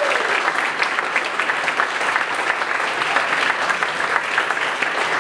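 A roomful of people applauding steadily in a standing ovation, dense overlapping hand claps.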